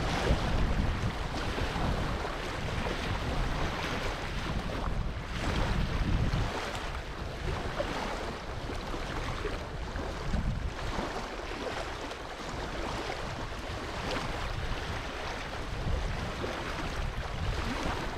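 Wind buffeting the microphone over a steady rush of noise, with heavy low rumble in gusts that is strongest over the first six seconds and eases after.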